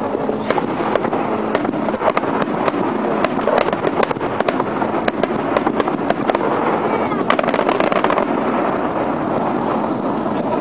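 Fireworks going off: sharp bangs and crackling pops from bursting aerial shells, several a second at irregular spacing, over a continuous rumble.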